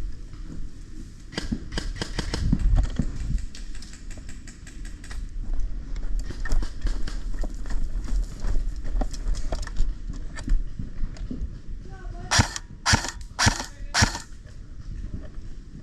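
Airsoft guns firing: a quick run of snapping shots in the first few seconds, scattered single shots after, then five loud sharp shots in quick succession about twelve seconds in.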